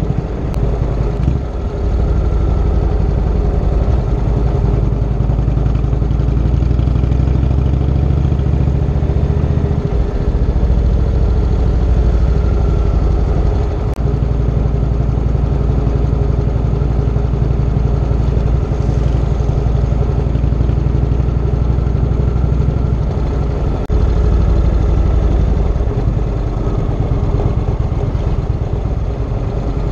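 Indian Chieftain's V-twin engine running as the motorcycle rides along, heard from a camera on the bike: a steady low engine sound mixed with wind and road noise. The sound breaks abruptly about 10, 14 and 24 seconds in.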